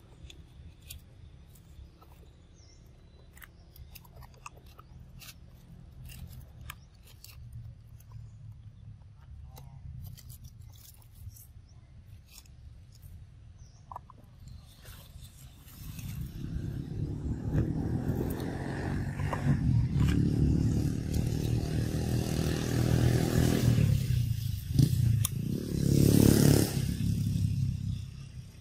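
Scattered faint clicks and rustles, then from about halfway a motor vehicle's engine rumbles in, grows loud and passes close near the end.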